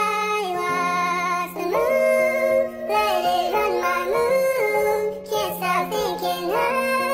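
Pop song playing: a high-pitched sung vocal line, lyrics 'I watch the moon, let it run my mood, can't stop thinking', over a steady held backing note.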